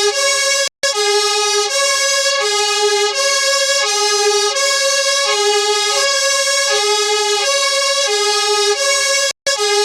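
UK fire engine's two-tone siren sounding the hi-lo "nee-naw", switching steadily between a high and a low note about every two-thirds of a second. It cuts out for a split second twice, just under a second in and near the end.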